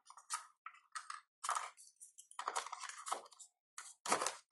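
Crinkling and rustling of thin plastic and paper packaging as accessories are lifted out of a smartphone's cardboard box, in a run of short, irregular crackles.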